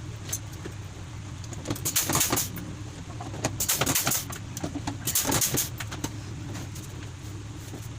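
Three short bursts of rapid clicking and rasping work noise, each under a second, over a steady low hum.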